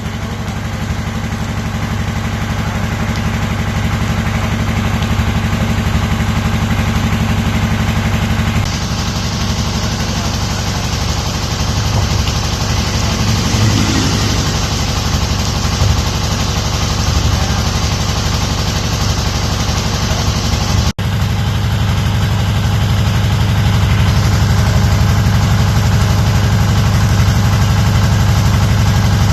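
A motor vehicle's engine idling steadily under a continuous hiss. The sound changes abruptly twice, at about a third and about two-thirds of the way through.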